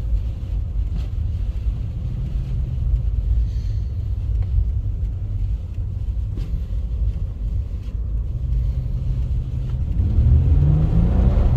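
1999 Isuzu Trooper's V6 engine running low and steady, then revving up about ten seconds in as the throttle is punched on snow, the wheels spinning with no grip.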